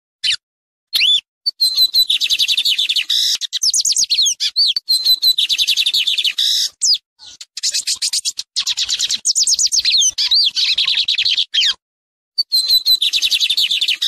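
Lined seedeater (bigodinho, Sporophila lineola) singing: long phrases of fast, high-pitched notes, broken by short pauses.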